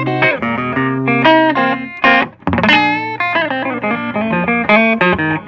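Electric guitar played through a hand-wired Fender 5E3 tweed Deluxe-style valve amp, with 6V6 power valves, 12AX7 preamp valves and a 5Y3 rectifier, into a Vintage 30-type speaker, set for a clean tone. It plays a run of single notes and chords, with a short gap a little over two seconds in.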